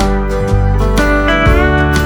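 Background music led by a slide guitar, with notes changing about every half second and one note gliding upward near the end.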